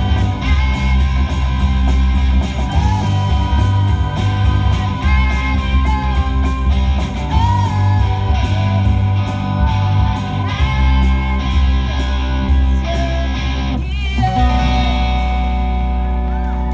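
Live rock band playing: two electric guitars through amplifiers over a steady drum beat. About 14 seconds in, the drums stop and a final chord is left ringing.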